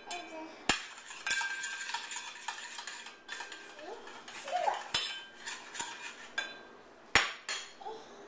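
A metal spoon clinking and scraping in a stainless steel mixing bowl as a toddler stirs, with a few sharp clanks and the loudest about seven seconds in.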